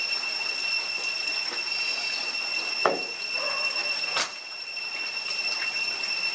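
Steady high-pitched insect drone of tropical forest over an even background hiss, with two sharp clicks about halfway through and a second later.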